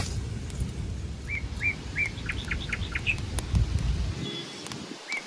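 A songbird singing a repeated phrase, a few short hooked whistles followed by quick sharp notes, starting about a second in and again near the end. Under it a low rumbling noise stops about four seconds in.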